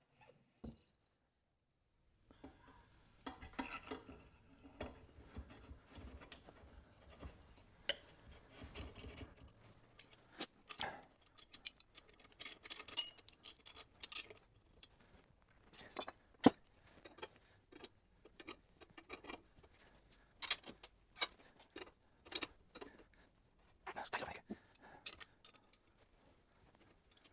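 Irregular metallic clicks, clinks and taps of tools and motorcycle front-fork parts being handled, with a faint low hum under the first several seconds.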